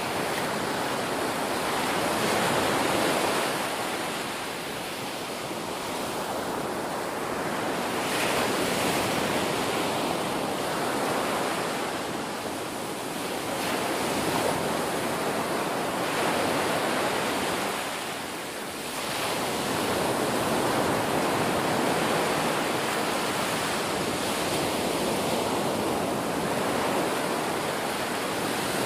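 Ocean surf: waves breaking and foaming water washing through the shallows, a continuous rush that swells and eases every few seconds.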